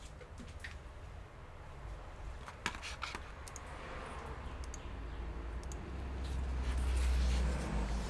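Handling noise at a workbench: a few light clicks and rustles as hands move over a bare laptop LCD panel, over a steady low hum. The low rumble swells briefly near the end.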